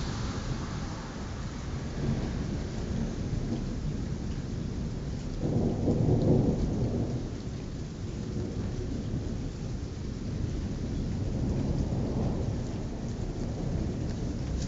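Thunder rumbling continuously over heavy rain, recorded through a mobile phone's microphone, with the loudest roll swelling about six seconds in and a smaller one near the end.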